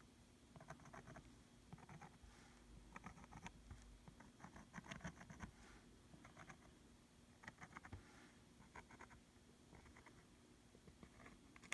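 Fine plastic nozzle of a squeeze bottle of relief paste scratching and tapping over textured canvas as a line is drawn: faint clusters of small ticks, roughly one cluster a second.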